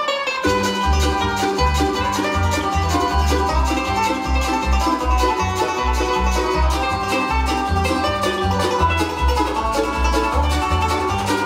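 Bluegrass band playing a banjo instrumental: five-string banjo picking over mandolin, acoustic guitar and upright bass, the bass keeping a steady beat.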